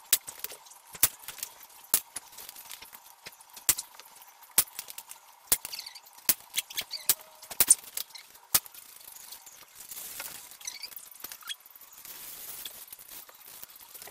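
Staple gun firing staples through fabric into a wooden frame: about a dozen sharp shots at uneven intervals over the first nine seconds. Then soft rustling of the fabric being handled and folded.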